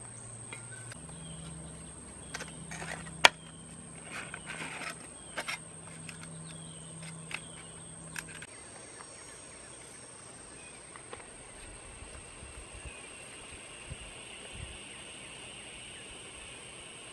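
Light taps and scrapes from hands and a small tool working wet cement onto a pot, with one sharp click about three seconds in, over a steady high-pitched insect drone. A low hum runs under the first eight seconds or so.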